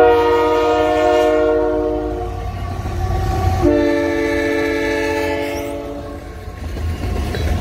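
Multi-chime air horn of CN GE ET44AC locomotives passing at close range: two long blasts, the first about two and a half seconds and the second starting about halfway through, with a third beginning at the very end, over the steady low rumble of the locomotives and train. The blasts are the warning for the road crossing the lead unit is passing.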